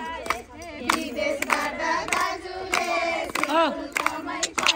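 Group of women singing a Nepali Teej folk song together, with hand claps keeping time.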